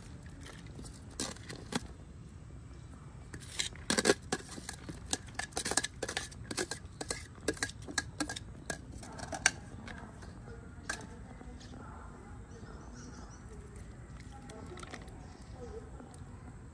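Hard objects clicking and clattering together, as in kitchen food preparation. It is a dense run of sharp knocks starting about three and a half seconds in, the loudest just after, dying away about nine and a half seconds in, with one more click a little later. A low, steady background noise runs underneath.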